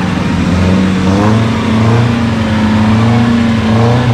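Engine of an off-road 4x4 stuck in slippery mud, revving up and easing off again and again, its pitch rising and falling about once a second as it strains for traction.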